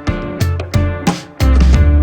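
Background music with a steady beat, heavy bass and guitar.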